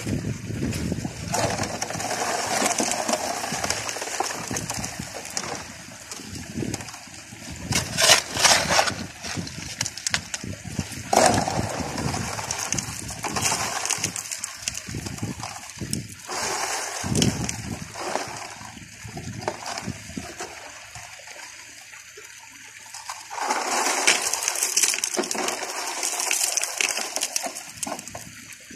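Water running through a homemade highbanker's hopper and sluice, with gravel and stones rattling and clattering as they are fed in and washed down. It goes quieter for a few seconds near the two-thirds mark, then picks up again.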